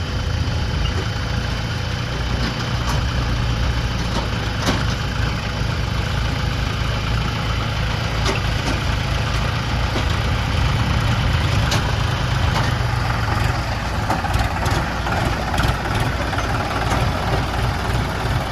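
Heavy diesel engine running steadily at a low, idle-like speed, with a few sharp clicks over it.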